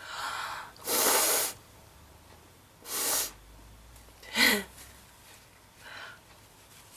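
A woman sneezing: a gasping in-breath, then three loud sneezes, about a second in, at three seconds and a sharper voiced one at four and a half seconds, with a faint breath near the end.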